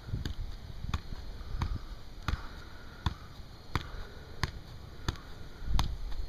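A soccer ball being juggled, struck by foot and leg in a steady rhythm: about nine dull touches, one every two-thirds of a second or so.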